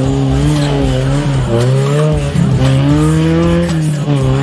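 Off-road buggy's engine revving under load as it climbs over dirt mounds. Its pitch rises and falls several times as the throttle is worked.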